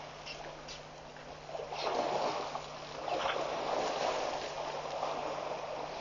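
Waterhole ambience from a webcam microphone: a rushing wash of water and wind noise that swells and fades every second or so, with a few brief faint high chirps. A steady low electrical hum runs underneath.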